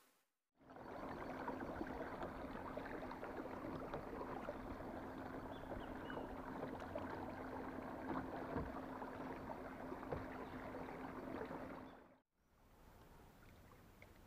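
Water rushing and splashing along a kayak's hull as it is towed along a river, with a steady low hum under it. It cuts off suddenly near the end, leaving only faint water sounds.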